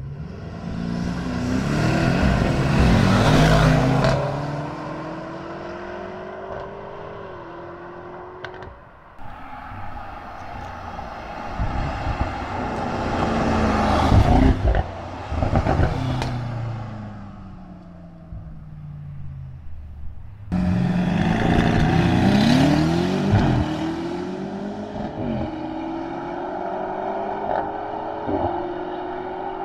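Twin-turbo V8 performance sedans launching hard in a drag race: engine pitch climbs steadily and steps down at each upshift, with a car passing loudly about fourteen seconds in.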